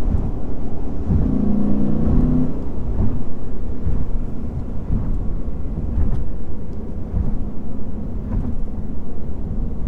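Lexus IS500's 5.0-litre naturally aspirated V8 running on the move, a low steady rumble mixed with road noise, with a short rise in engine tone about a second in.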